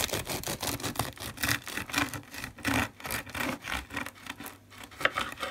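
Knife sawing through a crusty, seed-topped loaf of freshly baked gluten-free brown bread on a wooden cutting board: a run of quick back-and-forth strokes.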